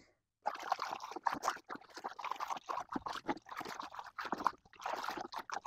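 Diluted concrete stain being stirred in a plastic five-gallon bucket: irregular sloshing and splashing of the liquid, starting about half a second in.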